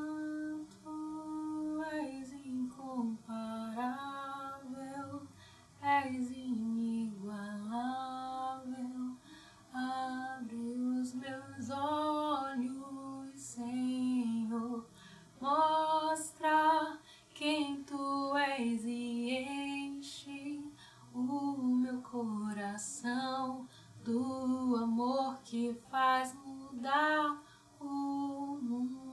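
A woman singing solo and unaccompanied, in slow phrases with long held and gliding notes and short breath pauses between them.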